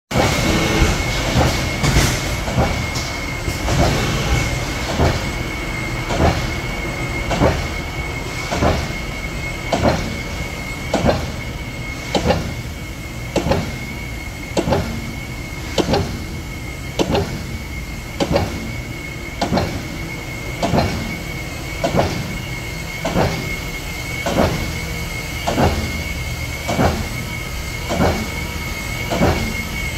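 Brown T-350L trim press cycling, with a regular clunk about every 1.2 seconds over a steady mechanical rumble and a constant high-pitched whine.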